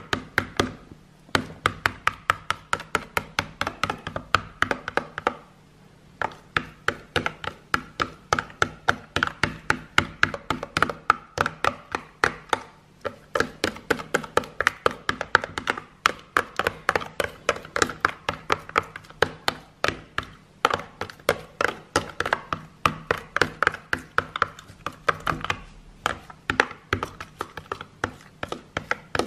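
A spoon stirring fast in a clear plastic container of liquid hand soap and dish soap, clacking against the sides and bottom several times a second, with short pauses about a second in and around five seconds in.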